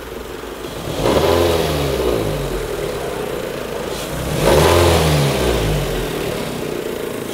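Toyota Corolla 1.6-litre engine revved twice, the pitch rising and falling each time, to bring out the 'brrrr' noise of the car's fault, which the mechanics trace to a loose sheet-metal air-guide plate in the intake.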